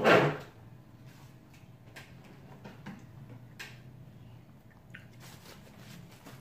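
A person's single short, loud breathy sound right at the start, then faint scattered clicks and rustles.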